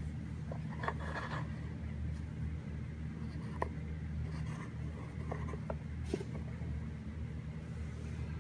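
Light scraping, rustling and a few sharp clicks of packaging being handled, over a steady low hum.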